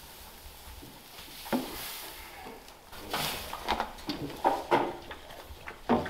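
Hay rustling with irregular knocks as hay is pushed and packed down into a metal goat hay feeder with a PVC pipe.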